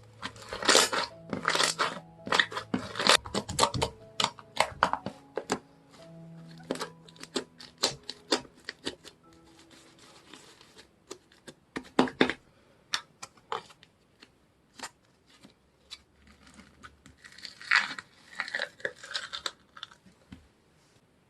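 Slime being pressed and pulled by hand, giving many quick clicks and pops, thickest in the first few seconds and again near the end. Soft background music plays underneath.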